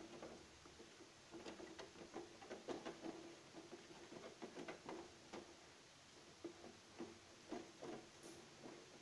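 Wire balloon whisk beating a thin batter of flour and glutinous rice flour in a plastic tub, its wires clicking and scraping against the sides. Faint, quick, irregular taps, thickest in the first half and thinning out near the end.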